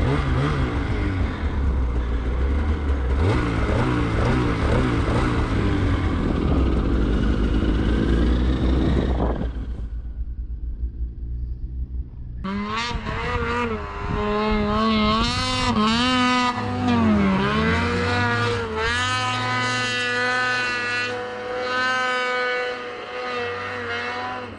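Mountain snowmobile engine running at high revs through deep snow, the revs rising and falling. It eases off about ten seconds in, then comes back as a clear, high, wavering engine whine that holds steady near the end.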